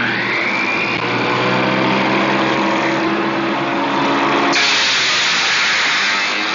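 Table saw with a dado blade starting up, its whine rising during the first second as the motor comes up to speed, then running steadily. About four and a half seconds in, the sound turns harsher and noisier as cardboard is fed into the blade and shredded.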